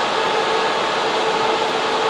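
Server room cooling fans and air conditioning running steadily: a loud, even rush of air with a constant hum at two fixed pitches.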